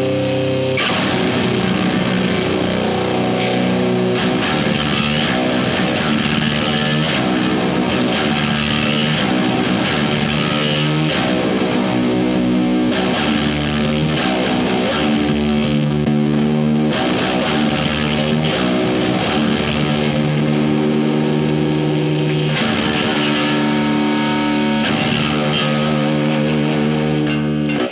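Low-tuned electric guitar through a Wyong Rd Electronics Keris overdrive/fuzz/boost pedal stacked with other drive and fuzz pedals, playing heavily distorted sustained chords and riffs. It stops abruptly at the end.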